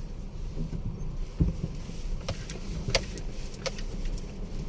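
Car cabin rumble while driving slowly on a rough road, with a few sharp knocks and rattles.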